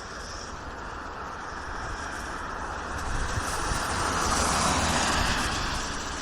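A vehicle passing on a wet road: tyre hiss swells to its loudest about four to five seconds in, then eases. Breeze on the microphone adds a low rumble underneath.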